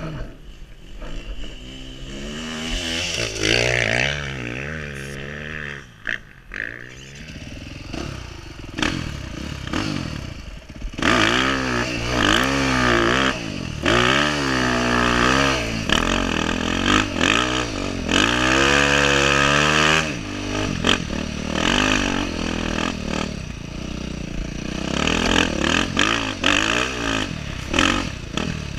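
Dirt bike engine, heard from the rider's helmet, revving up and easing off again and again as the bike is ridden through sand and brush, with brush scraping against the bike and the chassis rattling over the rough ground.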